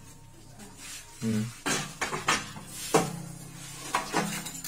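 Metal clanks and knocks as the steel hexagonal mould of a manual paving-block press is tilted and pulled out of its frame: several sharp knocks, the loudest about three seconds in.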